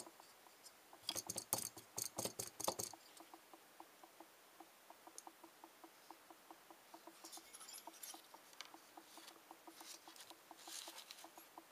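Faint handling noise as a CPU heatsink with fan is turned over in the hands above paper: clusters of crackly rustles and light clicks about a second in, again past the middle, and near the end. A faint, even ticking about five times a second runs underneath.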